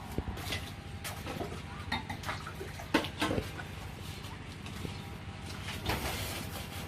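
Irregular metallic clinks and knocks of metal tools and pieces being handled, the sharpest about three seconds in, over a low steady hum.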